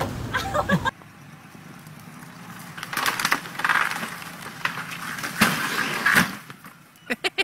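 Wooden porch roof and posts collapsing: timber cracking and crashing in several loud bursts, the loudest about five and a half seconds in.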